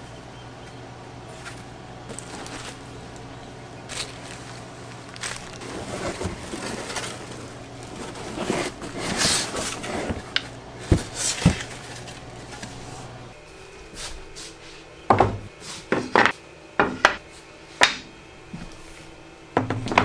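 Unpacking a crosscut sled: cardboard and bubble wrap rustling as the panels and rails are lifted out of the box, with a few clicks. In the second half, a run of sharp knocks and clatters as sled parts are set down and handled on the saw table.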